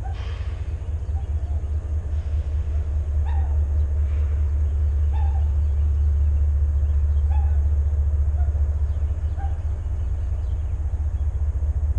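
Steady low rumble, with about five faint, short bird chirps a second or two apart.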